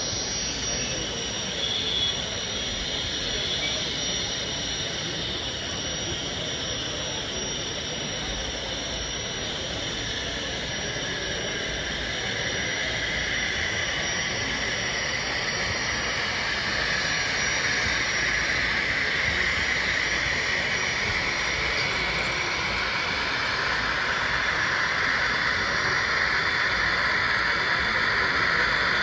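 Steady jet-like whine of a sound-equipped model Union Pacific gas-turbine locomotive running on the layout, growing a little louder through the second half.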